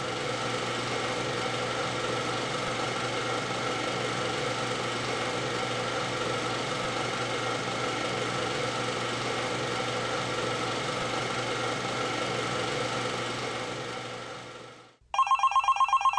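A steady drone with a few held tones, fading out about fifteen seconds in. Then a telephone rings, a fast, even trill that is the loudest sound.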